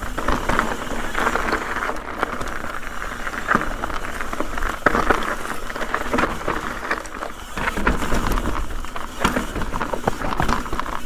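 Full-suspension mountain bike rolling fast down a dirt and rock trail: tyres crunching over dirt and rock, with many short clicks and knocks as the bike rattles over bumps.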